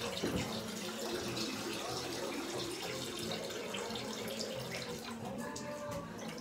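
Water running steadily in a bathroom, a constant even rush.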